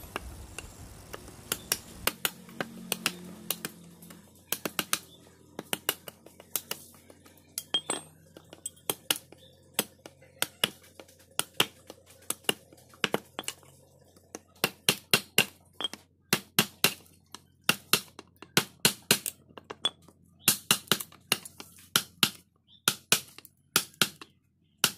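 Hammer striking a chisel that is cutting into a block of old jackfruit wood. Sharp knocks, a few a second, come in quick runs with short pauses between them.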